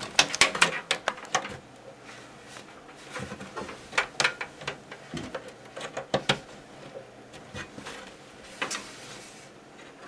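Irregular clicks and knocks of plastic 4-pin power-supply connectors and their cables being handled against a metal PC case, in bunches with quieter gaps between.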